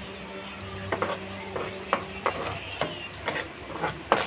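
Metal spatula stirring and scraping in a wok of simmering sauce, clacking against the pan at irregular intervals about twice a second, over a steady sizzling hiss.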